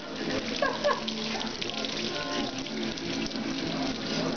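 Running water splashing steadily on concrete, with a voice briefly heard about a second in.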